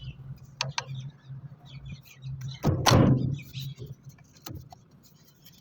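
Metal engine parts being handled during diesel engine reassembly: a few sharp clicks, and one louder clank with a scrape about three seconds in, over a low steady hum.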